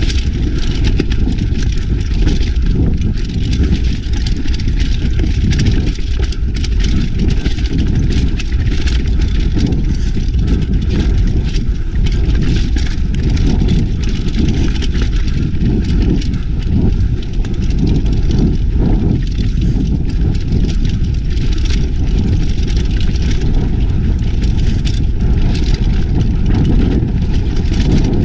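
Mountain bike rolling fast down a dirt singletrack: a steady low rumble of wind and tyres on the microphone, with frequent small clicks and rattles from the bike over the rough ground.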